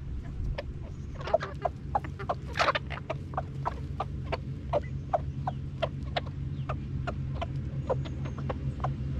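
A flock of chickens clucking while they peck maggots off bare soil, with many quick taps of beaks striking the ground and one louder call about two and a half seconds in, over a steady low hum.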